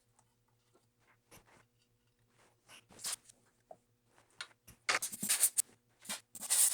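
Hand-squeezed rubber air blower (rocket blaster) puffing air into the open MacBook Pro to blow out dust: short hissing puffs, a few sparse ones at first, then several in quick succession in the second half.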